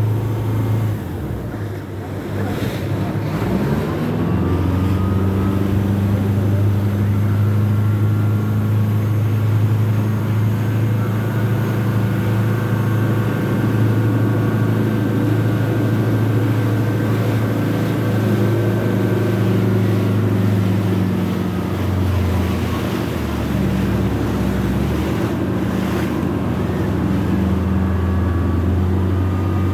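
Engine of an old boat running steadily. Its pitch rises about three seconds in as it picks up revs, then drops for a few seconds about two-thirds of the way through before coming back up.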